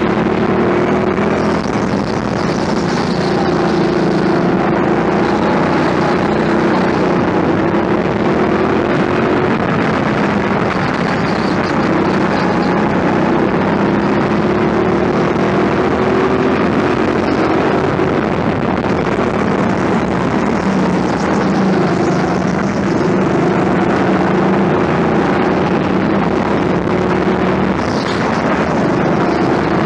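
Indoor go-kart driven at speed, heard from on board: a steady drive note whose pitch rises and falls through the corners, with short high squeals now and then.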